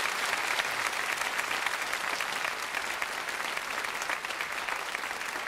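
Large audience clapping, a dense steady applause that eases a little near the end.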